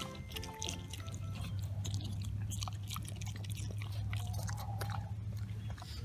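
Pig chewing and munching grass at close range, a string of irregular crunching clicks over a low steady hum. A few notes of background music fade out in the first second.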